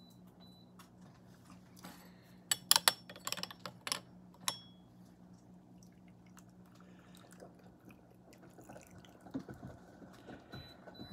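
Tea ware clinking sharply several times while hot water is poured and drips over the leaves for the rinse before the first infusion. A low steady hum runs underneath and stops about seven seconds in.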